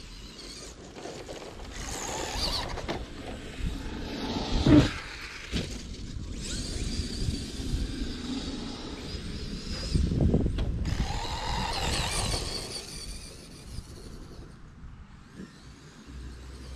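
Electric RC cars running over grass, their motors whining up and down as they accelerate and slow. Several knocks and thumps from landings or impacts, the loudest a thump about five seconds in.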